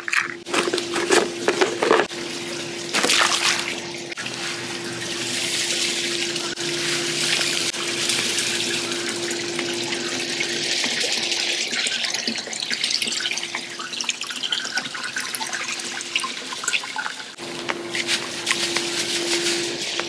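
Granular pool shock pouring from a bag onto the water surface, a steady hiss of grains landing that runs most of the way through, over a steady low hum. A few sharp plastic clicks near the start as a pool chemical container is handled.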